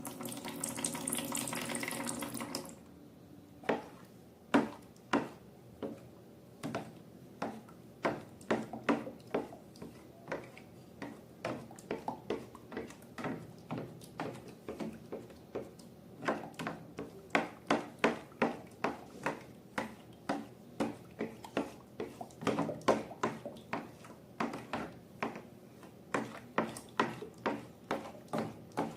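Liquid pouring out for about two and a half seconds, then slime being worked by hand, with a long run of sharp wet clicks and squelches at about two a second.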